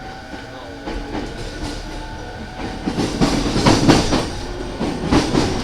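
Running sound heard inside an E217 series electric commuter car pulling away, with a motor whine over the rumble of the wheels. About three seconds in, the wheels clatter louder over rail joints and points, with sharp knocks near the end.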